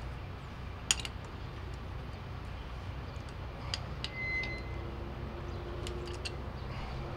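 A wrench clinking against the steel bolts of a pipe facing machine's tool holder as they are tightened: one sharp metal click about a second in and a few lighter clicks later, over a steady low hum. A brief faint high tone sounds a little after the middle.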